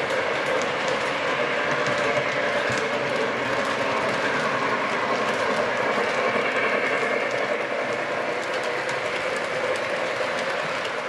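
O gauge model train running on the layout's track: a steady rolling rumble of wheels and drive motors, with light clicking of the wheels over the rail joints.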